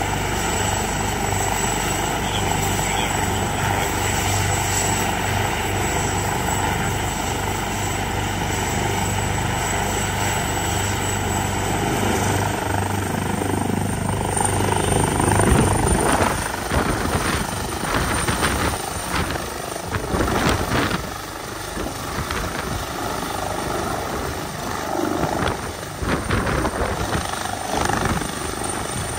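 Helicopter's turbine engines and main rotor running on the ground, a steady whine and rotor drone. About halfway through, the turbine whine climbs a little in pitch and the sound grows louder as it powers up for lift-off. After that, irregular gusts of rotor wash buffet the microphone as it lifts into a low hover near the end.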